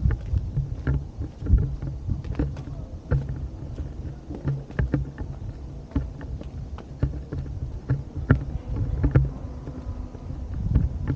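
Wind buffeting the microphone as a steady low rumble, with irregular light clicks and knocks about once or twice a second.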